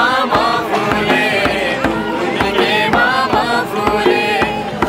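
A group of men and women singing together, accompanied by a steady beat on a madal, the Nepali barrel-shaped hand drum.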